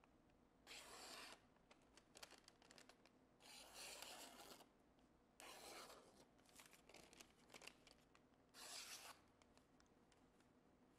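Faint swishes of a freshly sharpened Vanadis 10 steel hunting knife slicing through thin receipt paper, four strokes a second or two apart. The edge parts the paper with only a light hiss, a sign of a razor-sharp edge.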